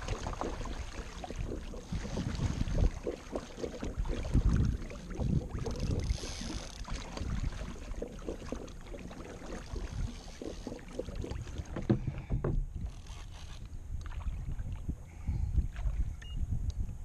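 Wind buffeting the microphone in uneven low gusts, with water splashing against the hull of a fishing kayak on choppy sea.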